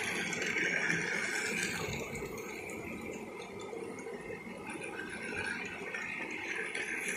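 Battery-powered toy train engine running around a plastic track: the steady whir of its small motor with the rattle of its plastic wheels on the rails, louder as it comes round close, fading in the middle as it runs along the far side, and growing again near the end.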